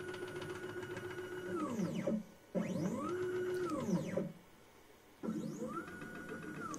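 Stepper motors of a C-Beam CNC router jogging an axis along its Acme lead screw: a whine that rises in pitch as the axis speeds up, holds steady, then falls as it slows to a stop. Three such moves, with short pauses between them.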